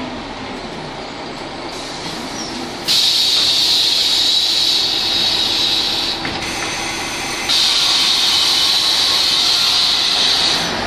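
Ikarus 280 articulated bus with its Rába D10 diesel running low underneath. Two loud, steady hisses of about three seconds each switch on and off abruptly.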